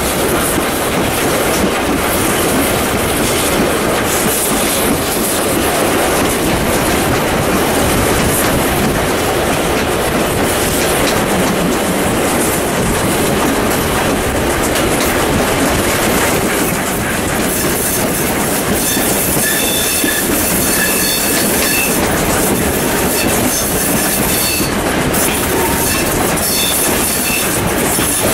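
Steam locomotive 621 hauling a five-carriage train up a steep 1 in 45 grade, heard from an open carriage window: a continuous loud rush of exhaust, wheels clattering on the rails and wind across the microphone. From about two-thirds of the way through, faint high wheel-flange squeal comes and goes as the train takes a curve.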